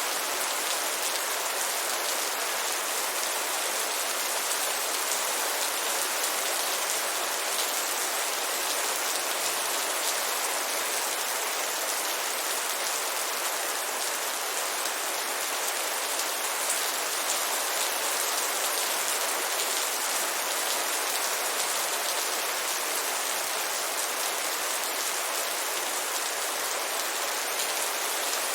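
Heavy rain falling steadily, an even dense hiss of drops without let-up.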